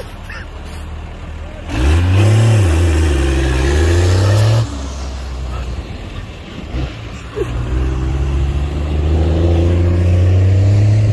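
Hemi V8 engine revving hard with the wheels spinning, in two long pulls: the first about two seconds in, its pitch dipping and climbing again, the second building from about seven seconds in and held at high revs near the end.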